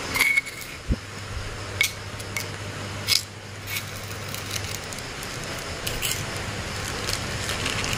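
Metal spoon scraping and clicking against a stone mortar as soft dough is scooped out, with a plastic bag crinkling; irregular scrapes and a few sharper clicks.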